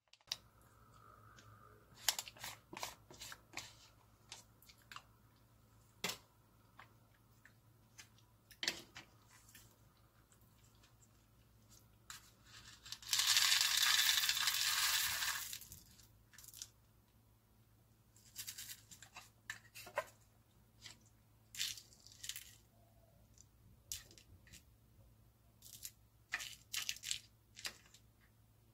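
Pink plastic spoon scraping and clicking against a plastic yogurt cup and its peeled-back foil lid, in short scattered clicks. About halfway through, a louder crackling rustle lasts about two seconds as the cup's side compartment is folded over to tip chocolate balls into the yogurt. Near the end, quick clicks of the spoon stirring them in.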